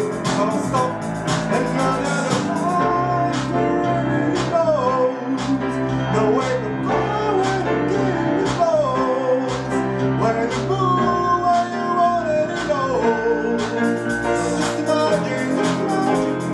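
A man singing while playing an upright piano. The singing starts a few seconds in and stops shortly before the end, with the piano continuing underneath.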